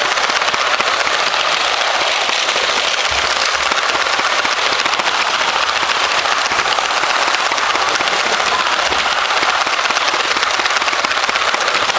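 Steady, dense rattling and clicking of a LEGO train running along plastic LEGO track, heard close up from a camera riding on the train.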